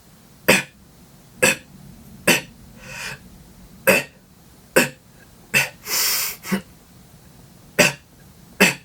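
Beatboxer's cough snare, a held-breath exhale cut with a throat-clearing rasp, struck about nine times at roughly one-second intervals. Two longer breathy hisses fall between the hits, about three and six seconds in.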